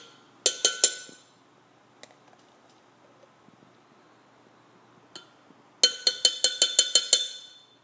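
A spoon clinking against the rim of a glass container, knocking scooped mayonnaise off: a few ringing taps about half a second in, one more around five seconds, then a quick run of about a dozen taps near the end.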